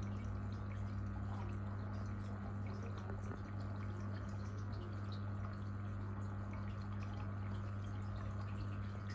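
Aquarium water trickling and dripping, with many small drips over a steady low hum from the tank's pump.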